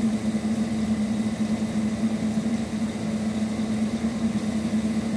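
A steady, even machine hum, the loudest sound, over a faint hiss of garlic, shallots and chilies frying in oil in a pan.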